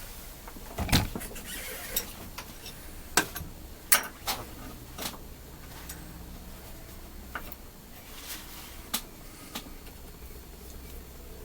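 Scattered clicks and knocks of small metal parts and hand tools handled on a workbench while a carburetor is fitted to a chainsaw, the loudest about a second in and again about four seconds in.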